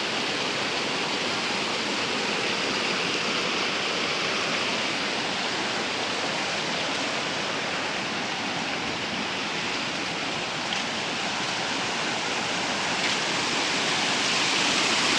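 Steady rush of a waterfall: falling water splashing into a pool, an even hiss without a break.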